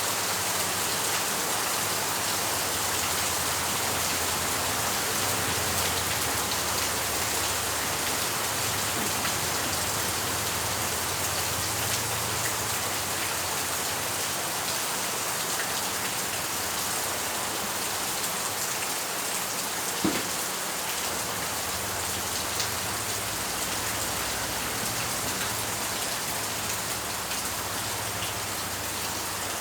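Steady rain falling, an even hiss of drops on surfaces, with one sharper, louder drop or click about two-thirds of the way through.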